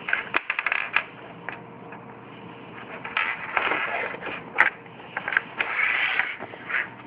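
Packaging being handled: several sharp clicks and taps, then two stretches of crinkling and rustling about three and six seconds in, with more scattered clicks between.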